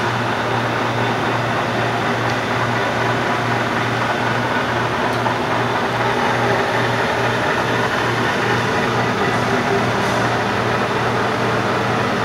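Clausing Nardini MS-1440E 14 x 40 engine lathe running with its spindle and chuck turning and no cut being made: a steady machine hum.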